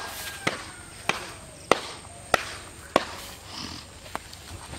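A steady run of sharp knocks, a little under two a second, with the last one weaker and further apart near the end.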